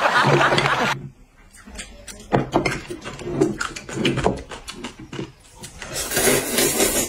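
Close-miked eating sounds: hot and sour noodles slurped for about the first second, then chewing with many small clicks and crackles, and another slurp-like swell near the end.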